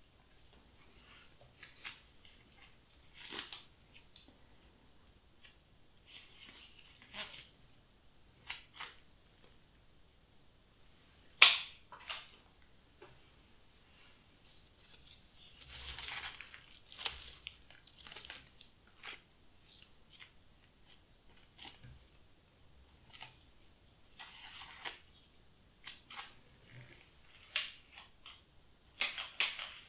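Pruning shears snipping plant stems with crisp single cuts every few seconds, the sharpest about eleven seconds in, between short rustles of dry stems and newspaper.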